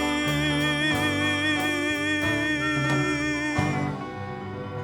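Live performance of a Spanish-language bolero ending: the singer holds the final note with vibrato over the band's closing chord. About three and a half seconds in the chord cuts off and only quieter backing continues.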